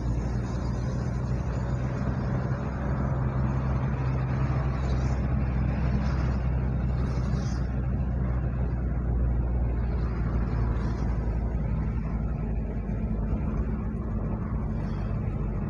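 A road vehicle driving at a steady speed: a continuous low engine hum with tyre and road noise.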